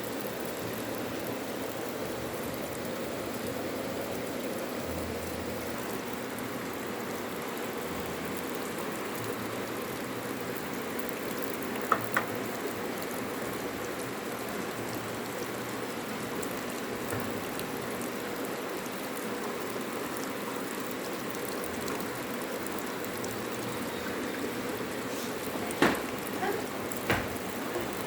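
Washing machine running with a steady rush of water, with a few short sharp clicks about twelve seconds in and twice near the end.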